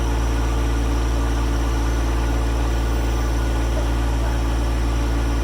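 John Deere 1025R subcompact tractor's three-cylinder diesel engine running steadily at low revs.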